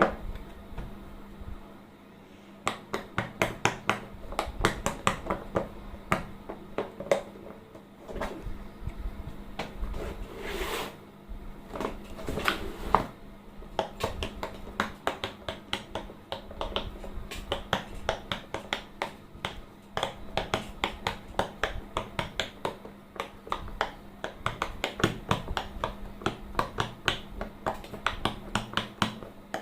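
Silicone pop-it fidget toy bubbles being pressed one after another, a long run of short pops at several a second with a couple of brief pauses, over a faint steady hum.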